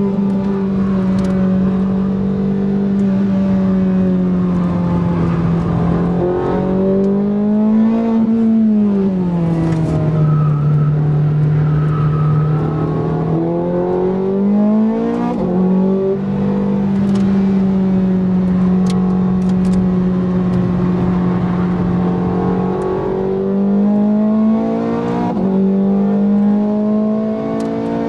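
Ferrari 430 Scuderia's 4.3-litre V8, heard from inside the cabin, running hard with the engine note rising and falling repeatedly as the throttle opens and closes through corners, with quick steps in pitch at the gearshifts.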